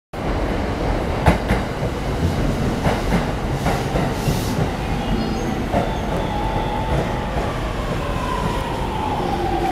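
JR East E231-500 series Yamanote Line electric train pulling into the platform and slowing. Its wheels clack over rail joints in the first few seconds, then its traction motors give a whine that falls in pitch as it brakes.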